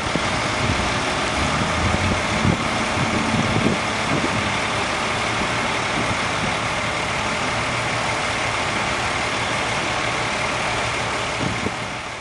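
Utility bucket truck's engine idling steadily, with a few low thuds in the first few seconds. It fades out near the end.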